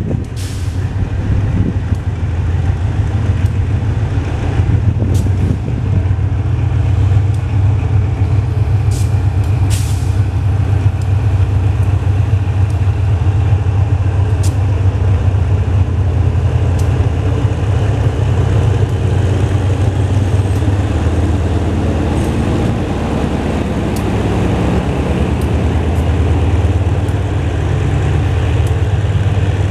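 Diesel locomotive hauling a passenger train past at close range, its engine giving a steady deep drone. The rolling of the train's wheels and carriages on the rails runs with it. A few short, sharp high noises cut through around half a second in and again around nine to ten seconds in.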